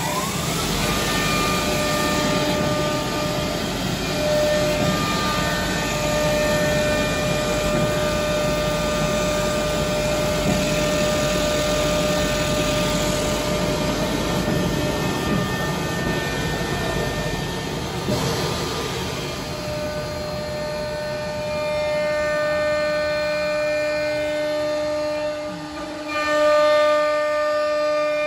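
CNC knife cloth-cutting machine running as its head cuts through black fabric: a steady machine whine of several held tones over a low rumble. The rumble eases about 18 seconds in, and the whine swells briefly near the end.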